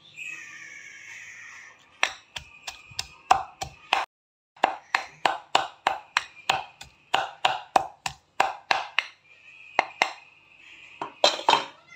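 Stone pestle pounding chilies and shallots in a stone mortar (Indonesian ulekan and cobek): sharp stone-on-stone knocks about three or four a second, pausing briefly, then a few louder knocks near the end.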